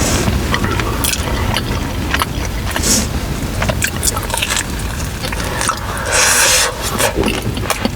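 Close-miked mouth sounds of eating pizza and chicken wings: biting and chewing with many small clicks and crackles, over a steady low rumble. A louder noisy sound comes about six seconds in.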